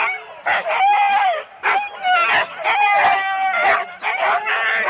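Siberian huskies in harness yelping and howling together in a continuous clamour of long, wavering, high cries and sharp barks: the excited noise of sled dogs eager to be let go at the start.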